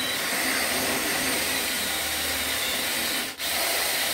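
Cordless drill running a 1/4-inch bit through a steel can and the stacked can lids inside it, a steady whirring cut with a brief let-off about three and a half seconds in.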